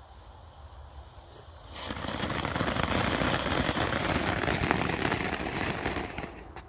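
A small youth-category ground firework (Distraction Flare) going off with a dense hissing crackle. It starts about two seconds in, burns for about four seconds and dies away near the end.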